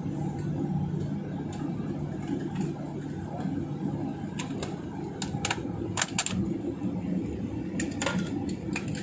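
Airliner cabin noise while taxiing after landing: a steady low hum from the Boeing 737-900ER's CFM56 engines at idle and the rolling airframe. Around the middle and again near the end come a scatter of short, sharp clicks inside the cabin.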